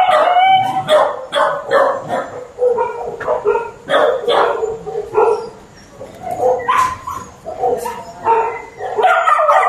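Many dogs barking over one another, with some higher yelps mixed in and a brief lull about halfway through.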